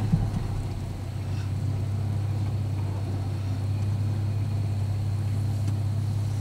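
Toyota FJ Cruiser's engine running with a steady low drone, heard from inside the cabin as the truck crawls slowly along a waterlogged trail. A single short knock right at the start.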